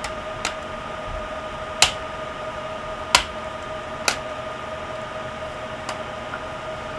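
Plastic clips of a Compaq Mini laptop's screen bezel snapping loose as the bezel is pried off: five sharp clicks spread over several seconds, the three in the middle loudest, over a steady hum.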